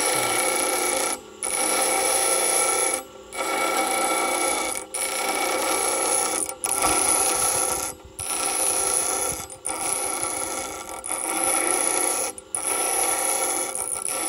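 Bench grinder wheel grinding down a metal threaded screw adapter, taking off the bulk of the material as the piece is turned against the wheel to keep it round. A steady scraping, ringing grind over the motor's whine, broken by brief breaks every second or two.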